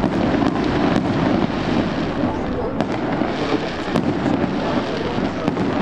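Fireworks display going off: a dense, continuous crackling with many quick pops and a few sharper bangs scattered through.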